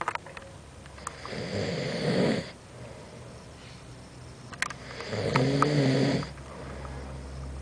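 A sleeping person snoring: two long, loud snores about four seconds apart, each lasting a little over a second, the second with a clearer pitch.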